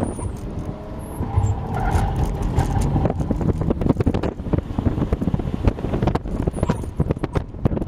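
BMW 3 Series sedan heard from inside the cabin on an autocross run: the engine pulls hard with road rumble, and wind buffets the microphone with crackling gusts. In the first few seconds a faint rising tone sits above the rumble.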